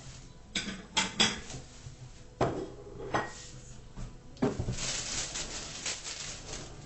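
Kitchen handling sounds: several separate knocks and clatters of items being moved, then about two seconds of steady rustling near the end.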